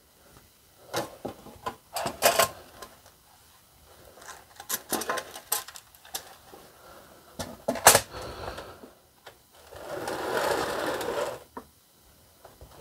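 Scattered clicks and knocks as a metal lazy susan bearing and MDF pieces are handled and set down. Near the end comes a second or so of a bristle brush sweeping across MDF.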